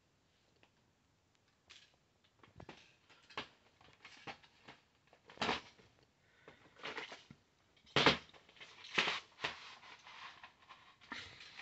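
VHS tapes being handled: plastic clamshell cases and a cardboard sleeve picked up and moved, and a cassette slid out of its cardboard sleeve, giving irregular rustles, scrapes and light knocks, loudest about eight seconds in.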